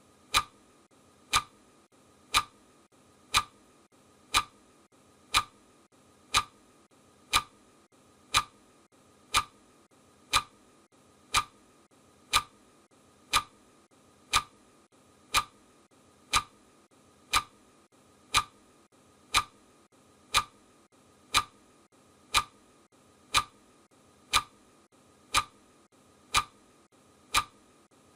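Clock ticking at a steady one tick per second, each tick short and sharp.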